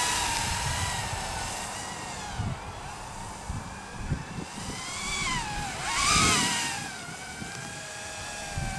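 EMAX Babyhawk micro quadcopter's 2S brushless motors and propellers whining, the pitch rising and falling with the throttle. About six seconds in the whine swoops down and then sharply back up, and it is loudest there.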